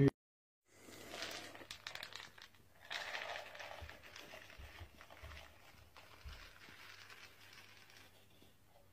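A brief moment of dead silence, then soft crinkling and rustling noises, louder in two spells about one and three seconds in and fading to faint rustles.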